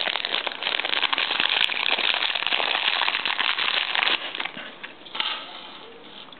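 Plastic bubble wrap crinkling and crackling as hands pull it open. The crackling is dense and loud until about four seconds in, then dies down, with one short burst just after five seconds.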